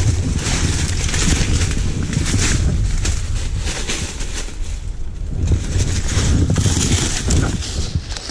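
Dry brush and twigs crackling and scraping against a body-worn camera as someone pushes through dense scrub, with dry leaves crunching underfoot.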